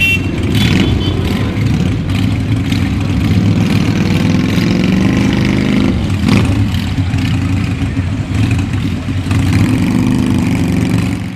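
A group of cruiser motorcycles running together at close range as they pull away, engines rumbling with revs rising and falling.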